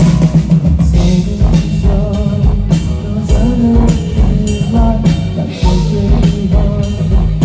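Live rock band playing loud through a PA at a sound check: drum kit, bass and electric guitar carrying a melody.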